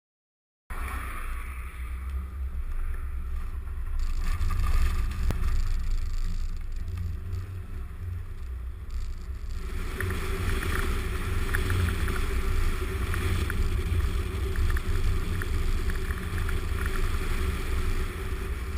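Suzuki Jimny driving, its engine and running gear giving a steady low rumble mixed with wind buffeting on the camera's microphone. Scattered light clicks and rattles come in about halfway through.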